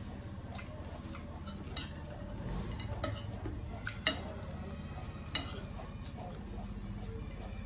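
Metal spoons scraping and clinking against glass plates of chatpat, a few sharp clinks scattered through, the loudest about four seconds in, over a steady low hum.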